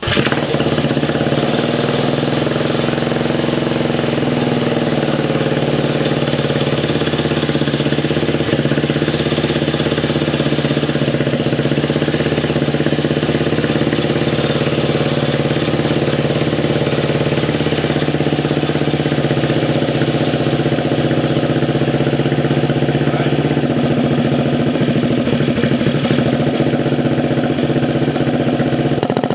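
Mini bike's small single-cylinder engine running at a steady idle, starting abruptly and holding its note with slight shifts in pitch early on and again about two thirds of the way through, as the idle is being tuned.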